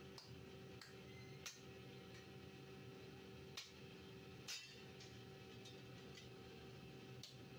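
Near silence: a faint steady hum with a few scattered soft clicks, the clearest about one and a half, three and a half and four and a half seconds in.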